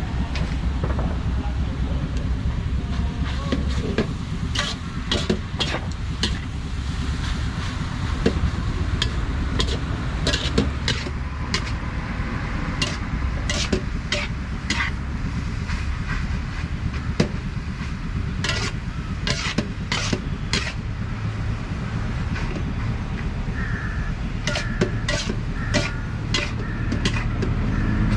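Busy buffet restaurant ambience: a steady low rumble with frequent sharp clinks of dishes and utensils.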